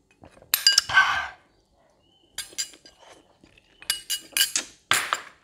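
Metal spoon clinking and scraping against a ceramic bowl while food is scooped out. There are a few short clusters of clinks, each with a brief ring.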